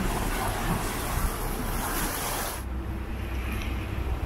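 Sailing yacht under engine in calm water: a steady low engine drone under a rushing hiss of wind and water. The hiss cuts off suddenly about two and a half seconds in, leaving the engine drone.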